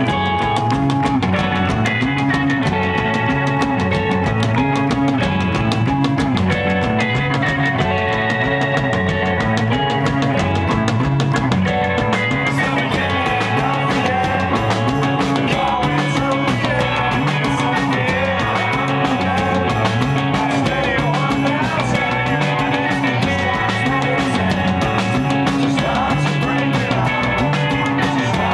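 Rock band playing live: electric guitar over bass and drum kit, a repeating riff that gets brighter and fuller about twelve seconds in.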